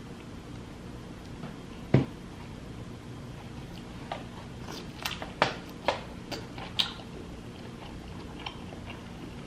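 Close-miked eating of a seafood boil: chewing with wet mouth clicks and smacks, one sharp click about two seconds in and a run of them in the middle, over a steady low hum.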